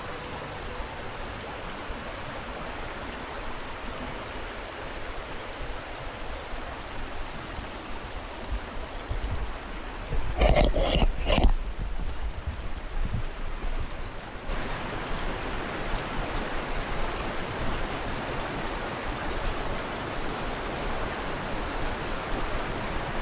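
Steady rush of spring water flowing out from under rocks, with a brief louder rumble about ten seconds in.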